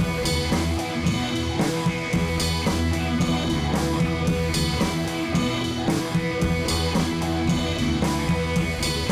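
Background rock music with electric guitar and a drum kit keeping a steady beat.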